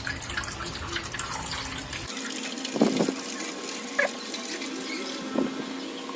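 Water running and pouring into an air humidifier's water tank as it is filled, with a few light knocks of plastic about halfway through.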